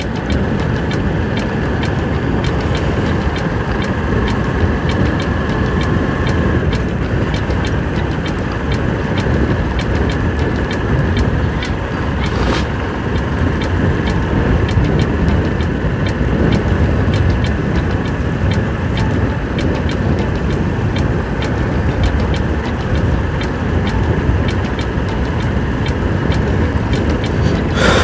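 Motorcycle being ridden at road speed: its engine running steadily under heavy wind rumble on the microphone, with a scatter of small clicks.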